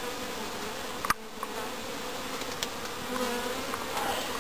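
Honey bee swarm buzzing close up: a steady hum. There is a brief knock about a second in.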